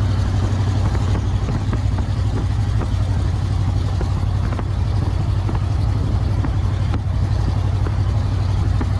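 A van driving down the road: a steady low engine and exhaust drone with road noise, holding an even speed.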